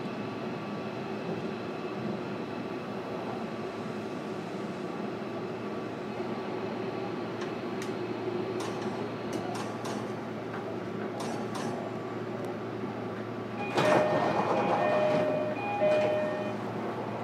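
Steady interior noise inside a JR Kyushu 305 series EMU motor car, with a few scattered clicks. About 14 s in, a sudden louder rush lasts a couple of seconds, with short repeated beeping tones.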